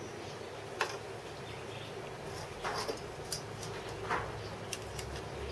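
Light clicks and short scrapes of a steel rule and engineer's square being handled against a metal casting, a few in the middle, over a steady low workshop hum.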